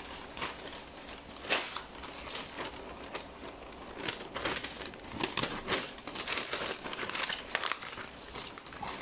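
Paper rustling and crinkling as a large folded paper instruction leaflet is handled and folded, with irregular sharp crackles.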